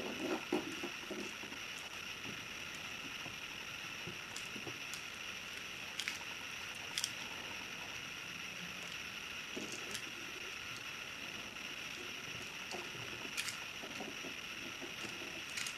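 Kittens playing on a hardwood floor: a few light taps and scuffles of paws, claws and a ball on the boards, over a steady hiss.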